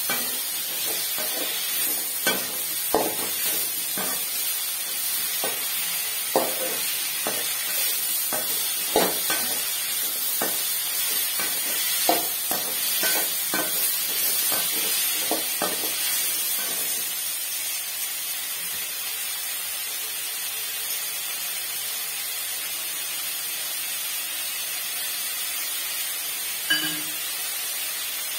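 Cauliflower florets frying in oil in a stainless steel wok, a steady sizzle. A perforated metal spoon scrapes and clinks against the pan about once a second during the first half. After that only the sizzle goes on, with one more clink near the end.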